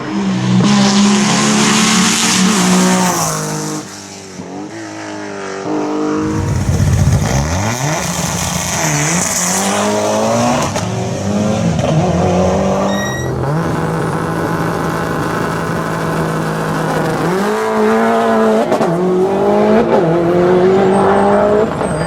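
Rally car engines on a hill-climb stage, revving hard and gliding up and down through the gears as cars pass, with a brief lull a few seconds in.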